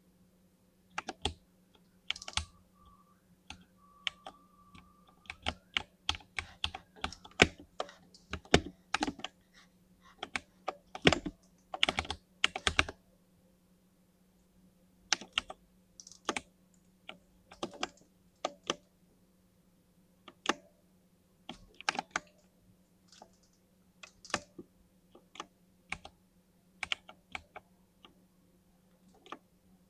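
Typing on a 60% mini mechanical keyboard with lubed linear switches, sharp irregular keystrokes. A fast flurry of presses comes in the first half, then slower scattered presses. A faint steady hum sits underneath.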